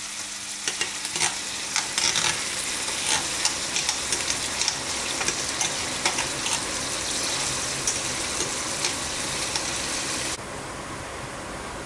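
Chopped onion and garlic sizzling in olive oil in a stainless steel frying pan, with a metal spoon stirring and clicking against the pan among the crackles. The sizzle suddenly gets quieter near the end.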